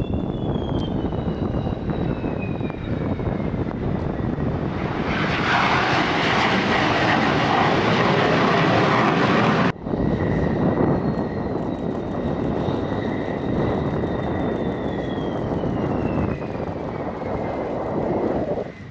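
F-16 Fighting Falcon jet engines as the fighters fly low over the runway and land: a steady jet roar with a high turbine whine that falls in pitch as each aircraft passes. The roar is loudest for a few seconds in the middle, cuts out suddenly for an instant, then resumes.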